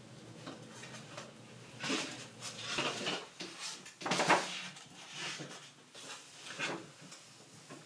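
A few quiet rustles and soft knocks of papers being handled on a table, about five in all, the loudest about four seconds in.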